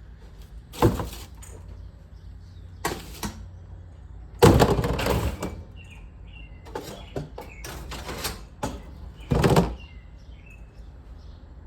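Short, high bird chirps from a bird loose in a garage, among a series of loud clattering, rustling noises, the loudest and longest about halfway through.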